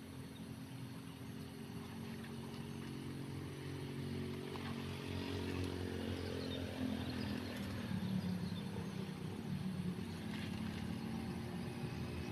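A small engine running steadily, growing louder over the first eight seconds or so, its pitch shifting a little as it comes closer.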